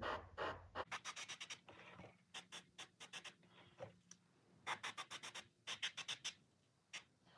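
Airbrush spraying red paint onto a lure in quick short bursts, heard as several clusters of rapid scratchy ticks, over a faint steady low hum.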